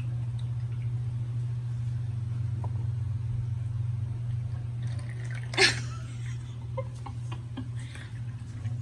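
Electric cat water fountain running: a steady low hum under the trickle of water falling from its spout, while a cat drinks from the stream. A short, loud burst of noise sounds a little past halfway, with a few small clicks after it.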